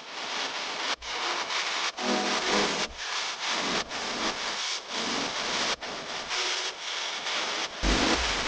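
Background pop music in an instrumental passage without vocals: a swishing, hissy texture that pulses about once a second, with faint low notes under it.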